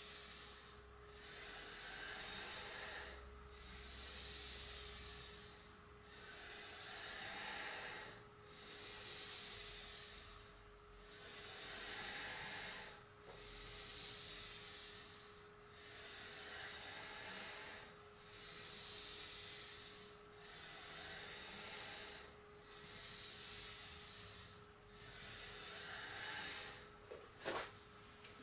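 A person's slow, paced breathing, heard as a soft hiss that swells and fades about every two seconds, over a faint steady hum. A brief sharp sound comes near the end.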